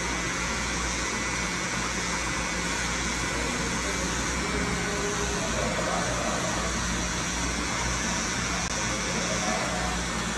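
Cordless hair trimmer running with a steady hum while its T-blade cuts short hair at the nape.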